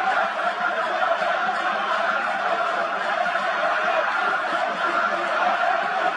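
Large stadium crowd in the stands making a steady din of many voices.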